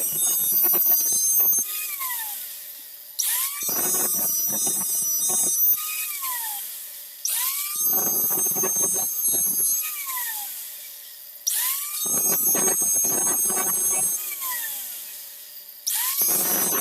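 Electric grinder sharpening the points of steel spear prongs in repeated passes: the motor spins up with a rising whine, grinds harshly against the metal for about two seconds, then is switched off and winds down with a falling whine, about every four seconds.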